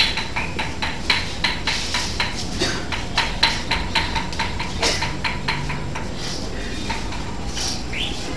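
Rhythmic metallic tapping, about three to four strikes a second, that grows weaker and uneven about five seconds in.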